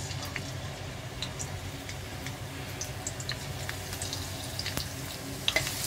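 Garlic cloves frying in hot olive oil in a pan: scattered small pops and crackles, getting busier near the end as the sizzle builds.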